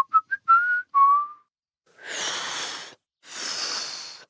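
A short whistled tune of quick notes that ends about a second in. Then come two breathy blows of air, each about a second long, with no note in them: failed attempts to whistle.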